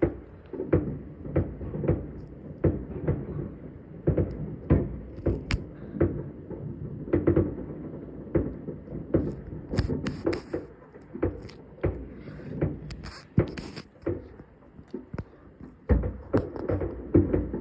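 New Year fireworks going off in many bangs in quick, irregular succession, mostly dull booms with a few sharper cracks.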